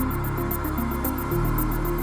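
Electronic background music with a steady beat and a bass line that changes note about a second and a half in.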